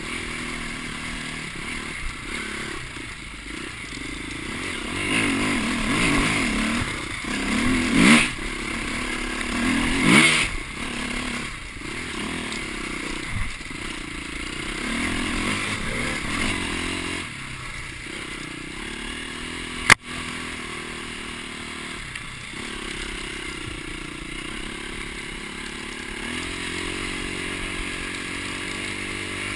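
Off-road dirt bike engine revving up and down as the bike rides a rough trail, with clattering and scraping from the bike over the ground. The engine climbs highest twice, around eight and ten seconds in. A single sharp knock comes about twenty seconds in.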